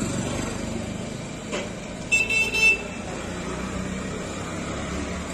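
Steady street traffic noise with a high-pitched vehicle horn giving a short double honk about two seconds in.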